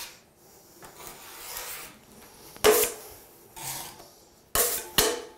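Drywall knife spreading and scraping setting-type joint compound (mud) on a drywall corner. Soft swishing strokes come first, then three sharp scrapes: one about halfway through and two in quick succession near the end.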